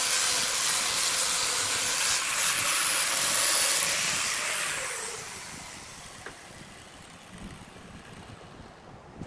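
Handheld power tool with a rotary sanding disc sanding a log as it turns on a wood lathe, giving a loud, even hiss. About five seconds in the hiss fades out with a falling whine, leaving a much quieter low rumble.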